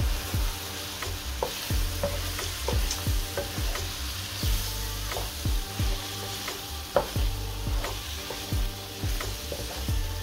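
French fries sizzling in masala in a non-stick frying pan, stirred and tossed with a wooden spatula that knocks and scrapes against the pan about twice a second.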